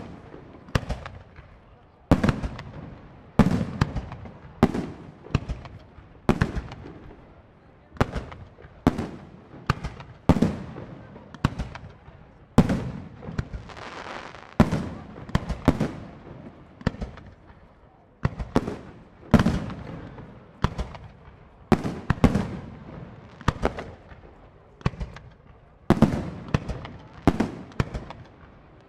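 Professional aerial firework shells, up to 4-inch, bursting one after another in a display: a rapid series of sharp bangs, roughly one a second, each trailing off in a rolling echo.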